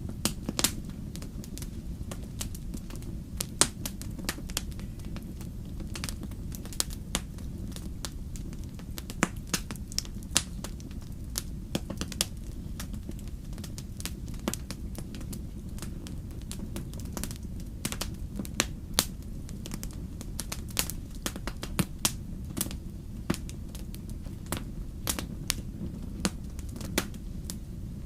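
Wood fire crackling in a fireplace: irregular sharp pops and snaps, several a second with a few louder ones, over a steady low rumble.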